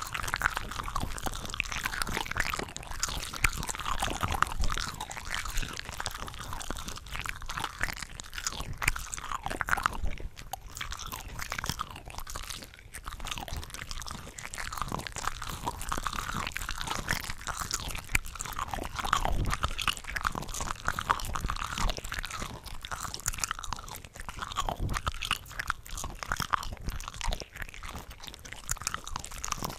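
Close-miked chewing and crunching while eating shrimp cocktail, several eating tracks layered over one another into a dense, continuous run of wet crunches and bites.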